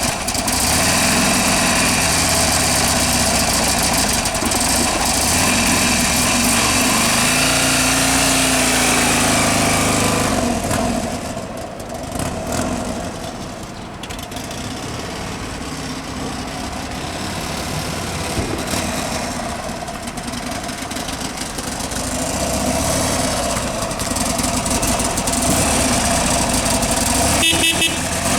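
Buell XB12Scg Lightning's 1203 cc air-cooled V-twin running, revved a few times in the first ten seconds, then idling more quietly for a stretch before the revs rise again. A brief sharp sound comes near the end.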